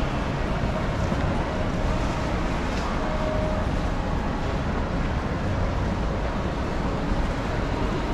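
Steady background rumble and hiss with no distinct events, like the general ambient noise of a large hall.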